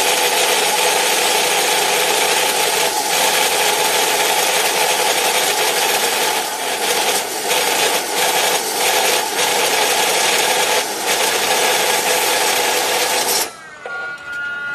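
Dekton brushless power saw with a carbide-tipped blade running and cutting: a loud, steady, harsh noise with a few brief dips past the middle. Near the end it is switched off and its whine falls away as the blade spins down.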